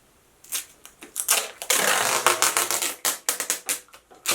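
Duct tape ripped off the roll, with a run of sharp clicks and knocks from handling small parts; the longest tearing sound comes about halfway through.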